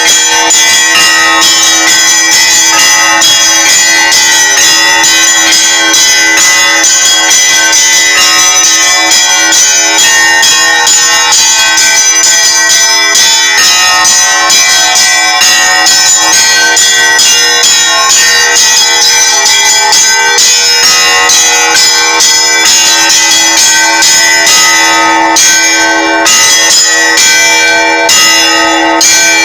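Orthodox church bells rung for the feast of the Ascension in a continuous festal peal: many bells struck in quick succession over a steady ringing tone.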